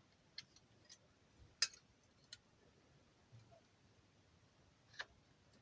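A few light, sharp clicks and taps, about five in all and spread out, the sharpest about a second and a half in: a cutlery knife and small marking tools being handled while a 50 mm mark is made on the blade.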